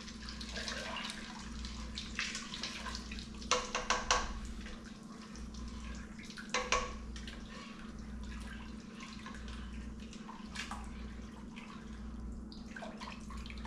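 Ice being stirred into hot curing brine in a pot: water swishing, with a few short clinks of ice or spoon against the pot, a small cluster of them a few seconds in.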